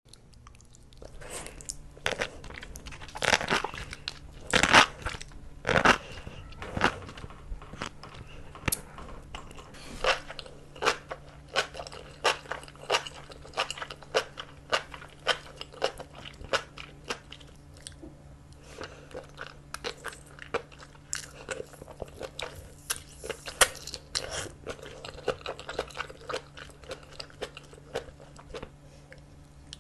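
Close-miked eating: loud crunchy bites, then steady crunching and wet chewing, with sharp clicks coming about twice a second. A faint steady low hum sits underneath.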